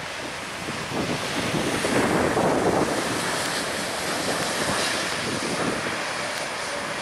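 Vietjet Air Airbus jet airliner's engines during the landing rollout, heard as a broad rushing noise that swells about a second in and then holds: engine reverse thrust as the aircraft slows after touchdown.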